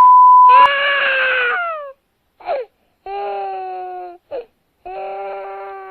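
A loud, steady electronic beep that cuts off just under a second in. Then a kitten gives three long, drawn-out meows, the first falling in pitch, with two short cries between them.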